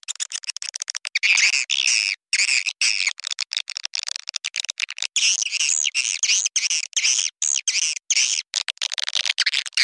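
Swiftlet lure recording: dense, fast twittering chirps and quick clicks of edible-nest swiftlets, high-pitched with no low end, with short breaks. It is the kind of call played to draw swiftlets into a nesting house.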